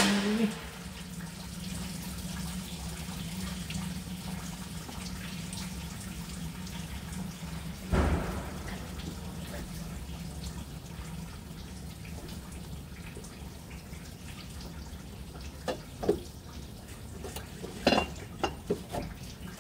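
Steady low hum under scattered clicks and knocks from work on the bus, with a sharp knock right at the start and a heavier thud about eight seconds in, then a cluster of short clicks near the end.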